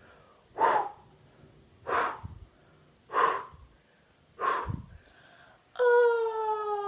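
A woman's voice doing a vocal warm-up: four short breathy 'ha' puffs of breath about a second and a quarter apart, then near the end a sung 'ooh' that slides slowly down in pitch like the wind.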